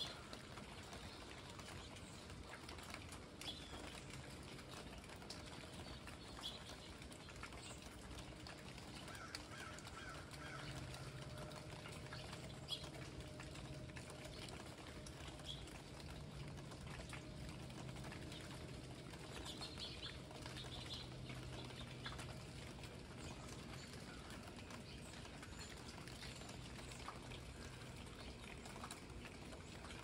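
Birds making short, scattered chirps over light dripping and patter of easing rain. A faint low, steady hum runs through the middle.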